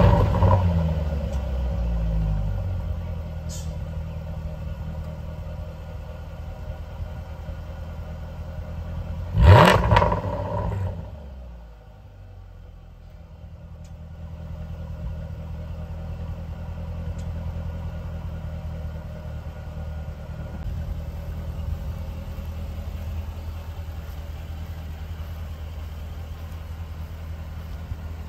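Jaguar F-type SVR's supercharged 5.0-litre V8 exhaust just after a start-up. The start-up flare settles to a fast idle, then one sharp rev comes about ten seconds in. A couple of seconds later it drops to a lower, steady idle.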